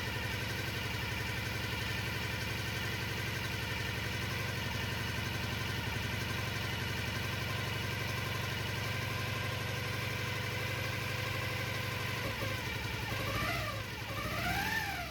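Freshly overhauled Jawa 500 OHC four-stroke twin engine running at a steady idle, then revved up and back down twice near the end.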